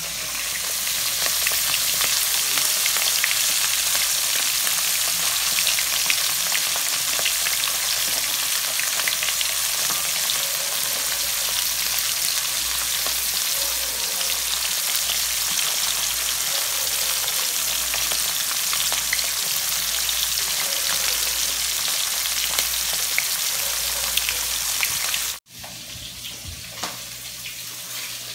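Fish pieces frying in hot oil in a wok: a steady loud sizzle with many small crackles. It cuts off abruptly near the end, leaving quieter background noise.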